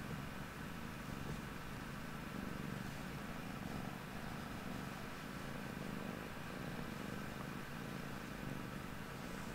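Balinese kitten purring, a steady low rumble that swells and eases in slow cycles.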